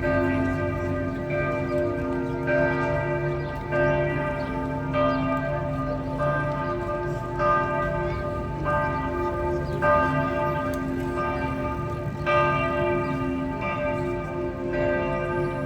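Several large church bells swinging in a full peal. Strokes overlap at about one a second, each leaving a long, lingering hum under the next.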